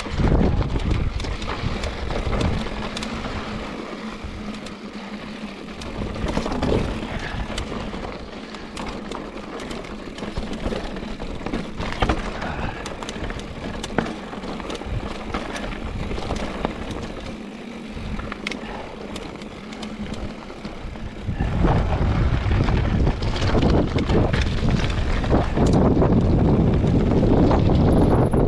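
Wind buffeting the microphone while riding along a rough trail, with steady rolling noise and frequent small knocks and rattles. About three quarters of the way through, the wind rumble grows much louder and stays loud.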